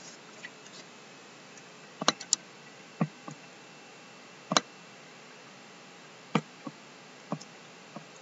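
Computer mouse clicking: a handful of short, separate clicks spaced a second or more apart, some in quick pairs, over faint room hiss.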